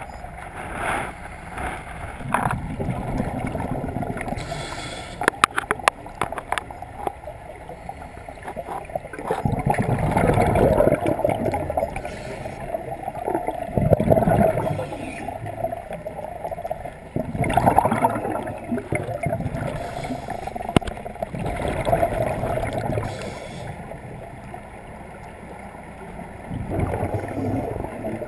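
Scuba regulator exhaust bubbles gurgling underwater, swelling in surges every few seconds with each exhaled breath. A short run of small clicks sounds about five seconds in.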